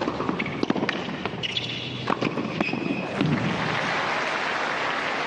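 Tennis rally on a hard court: sharp pops of racket strikes and ball bounces in the first couple of seconds, with the point finished at the net. Crowd applause follows in the second half.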